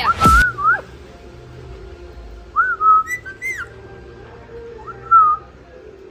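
Short whistled calls, each rising and falling in pitch: one at the start, a pair in the middle and one near the end, over a quiet steady background.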